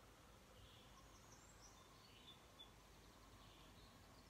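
Near silence: faint room tone with a few faint, high chirps spaced about a second apart.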